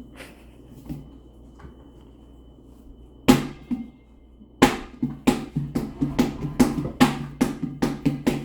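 A large inflated ball bouncing on a hard floor, with hollow thumps. Two single bounces come a little after three seconds in, then rapid repeated bounces about three a second, like dribbling.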